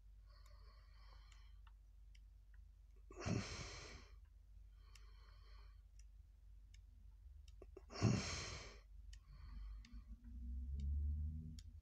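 Pages of a paperback comic book being turned. There are two louder swishes of paper about five seconds apart, softer rustles between them, and a low handling rumble near the end.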